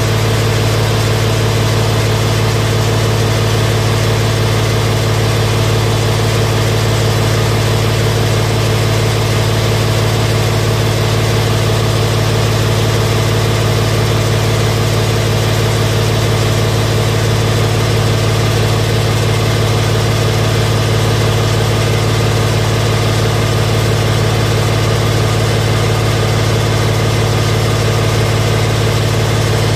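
Engine of a high-pressure drain-jetting machine running at a steady speed: a constant low hum that never changes in pitch or level.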